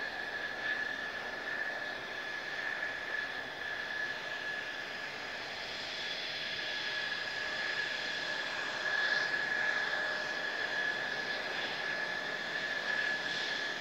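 Mitsubishi F-2 fighter's single F110 turbofan running at low taxi power: a steady, high-pitched jet whine over a rushing hiss.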